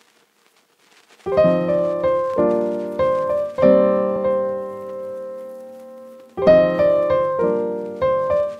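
Background piano music: chords struck and left to ring, starting about a second in. A long chord fades out in the middle before new chords come in near the end.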